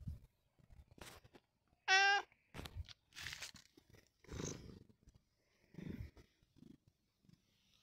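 A grey-and-white domestic cat gives one short, warbling meow about two seconds in, the loudest sound. Around it come soft rubbing noises and short low rumbles as the cat brushes against the phone.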